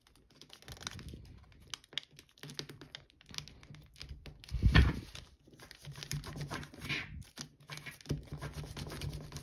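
Metallic foil origami paper crinkling and crackling as it is folded and creased by hand, in irregular small crackles and clicks, with a louder rustle about five seconds in.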